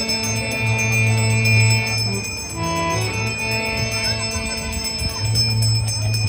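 Harmonium holding sustained chords, with the notes shifting in a short melodic run about two and a half seconds in, over a steady high bell-like ringing.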